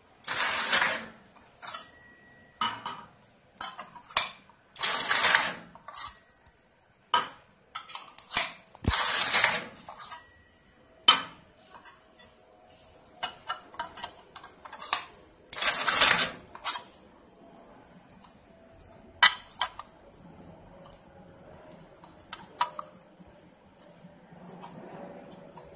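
Automatic taping machine running its cycle on USB charger shells: several loud noisy bursts, each about a second long, among many short mechanical clicks and clatters, thinning out over the last third.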